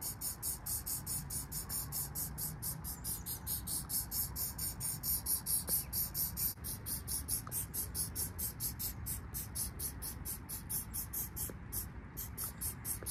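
Aerosol spray-paint can fired in rapid short taps, about four a second, each tap a brief hiss as it puts a single dot of black paint on the wall.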